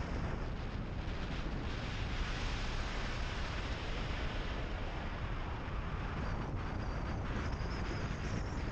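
A car driving along a gravel road: steady tyre and road noise mixed with heavy wind buffeting on the microphone.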